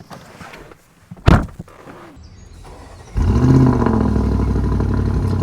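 A car door thuds shut, then the Audi SQ8's V8 starts: a short rising flare of revs that settles into a steady idle.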